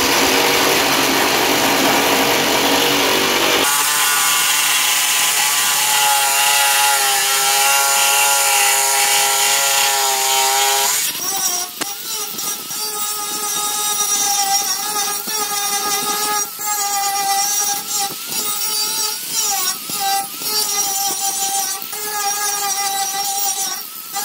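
A jigsaw cutting through a wooden board, then an angle grinder with a sanding disc grinding the board's curved edge. The grinder's motor whine wavers and dips over and over as the disc is pressed into the wood.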